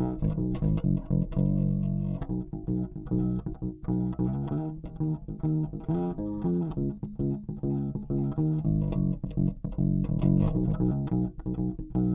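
OLP MM3 five-string passive electric bass played fingerstyle: a steady stream of plucked notes, with both coils of its single humbucker turned full up.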